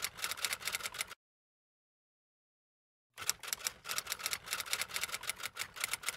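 Typewriter key strikes in quick succession, a typing sound effect. One run stops about a second in, and after a two-second pause another run starts about three seconds in.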